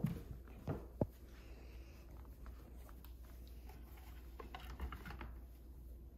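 Quiet indoor room tone with a few soft knocks in the first second, the strongest about a second in, and faint light clicks about four to five seconds in.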